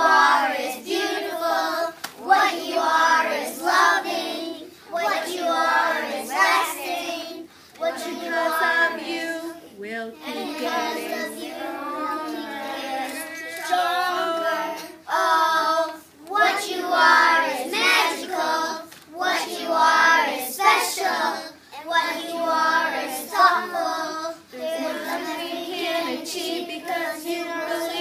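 A small group of young children singing a song together.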